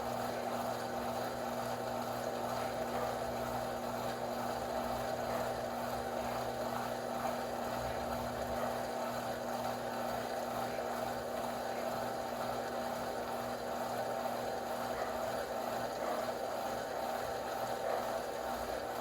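Electrolux LTD06 washing machine running mid-cycle: a steady electric hum with a constant rush of water.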